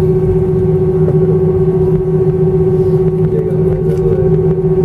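Airbus A319's jet engines running at taxi idle, heard inside the cabin over the wing: a steady, loud hum with a constant droning tone.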